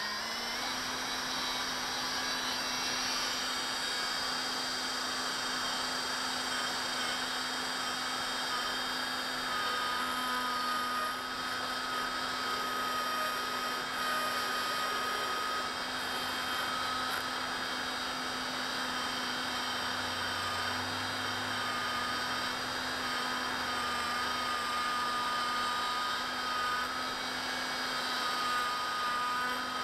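EMAX 2204 brushless miniquad motor spinning at a steady speed with a steady whine, while a hand file held against its spinning aluminum bell scrapes metal off; a thin higher tone joins about ten seconds in. This is the crash-damaged bell being filed back into balance.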